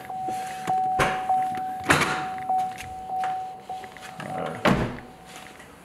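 Warning chime of a 2014 Chevy SS sounding from the lit cabin as a steady tone that repeats about every half second and fades away near the end. Over it come sharp clunks of the door and trunk release being worked, the loudest about two seconds in.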